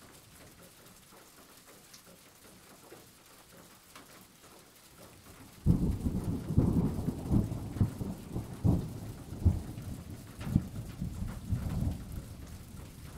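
Thunderstorm: light rain hissing steadily, then about five and a half seconds in a sudden loud clap of thunder breaks in. Heavy low rumbling follows, with repeated cracks through the rest.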